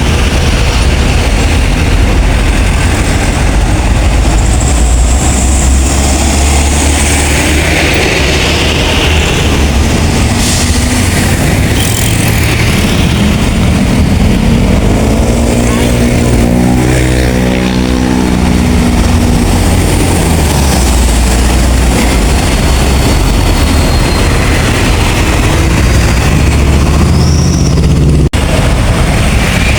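Heavy vehicles passing on a road, with a continuous low engine and tyre rumble. Around the middle, one vehicle's engine note stands out clearly as it goes by.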